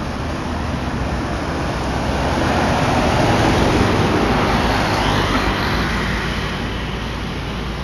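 Heavy truck with a long trailer passing close by: engine and tyre noise swell to a peak about four seconds in, then fade as it drives off.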